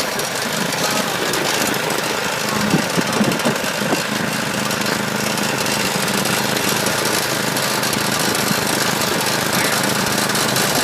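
A small engine running steadily under a loud rush of wind on the microphone.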